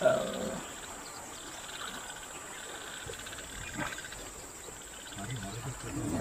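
Faint, steady insect chirring, after a short, louder sound right at the start.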